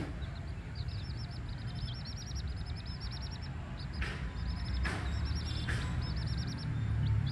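Young chicks peeping in quick runs of short, high, arched notes, over a steady low rumble. Three brief sharp knocks or rustles come about four to six seconds in.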